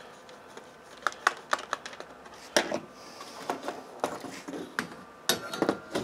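Light clicks and taps of a screwdriver and small screws on the plastic underside of a Sony Vaio laptop, scattered and irregular, starting about a second in. Near the end comes a cluster of louder knocks as the laptop is picked up and turned over.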